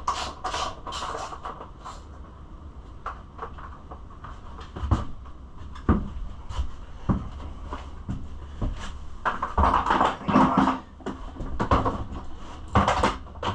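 Scattered clicks, knocks and rattles of hand tools, bolts and plastic body panels as the side plastics are unbolted from a dirt bike, with a few busier bursts of handling near the end. A steady low hum runs underneath.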